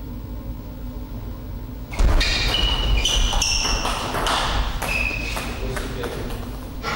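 Table tennis rally: the celluloid-type ball clicking off rackets and table in quick succession, several hits with a short high ping, starting about two seconds in with a thud and ending about six seconds in.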